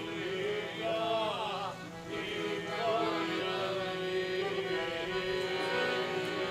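Several voices singing a Serbian folk song in a wavering, ornamented melody over one long held note.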